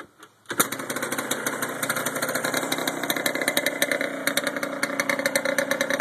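1994 Yamaha Blaster's 195 cc single-cylinder two-stroke engine kick-started, catching about half a second in and then idling with a rapid, even beat. It runs through a DG full exhaust with its baffles and spark arrestor gone, basically a straight pipe, and is pretty loud.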